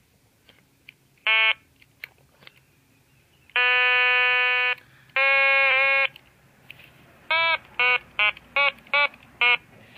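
Otamatone electronic toy instrument sounding a buzzy synth note, always at the same pitch: one short note, two held notes of about a second each, then six quick short notes in a row. The short notes have a 'wah' as the squeezed head's mouth opens and closes.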